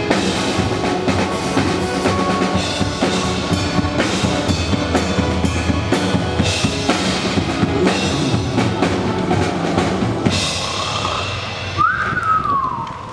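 Music led by a drum kit with bass drum and snare, thinning out about ten seconds in, with a single falling tone near the end.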